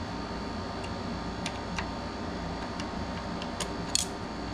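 A few light, sharp metallic clicks and taps of steel parts being handled on a mini lathe's bed as a shopmade carriage stop is tried out, over a steady low background hum.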